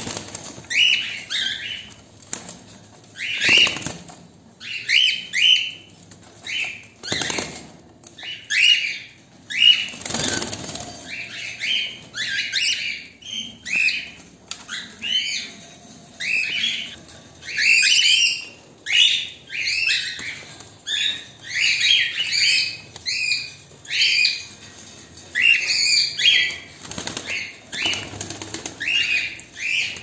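Frightened cockatiels in a wire cage giving repeated harsh alarm screeches, about one or two a second, with bursts of wing flapping in the first third.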